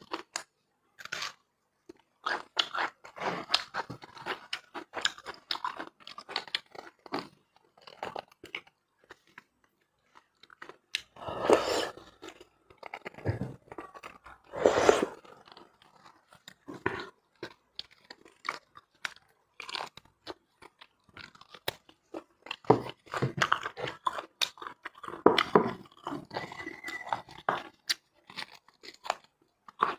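Close-miked eating of braised beef bone marrow: steady chewing with many short mouth clicks, and a few longer, louder sounds twice near the middle and again later on.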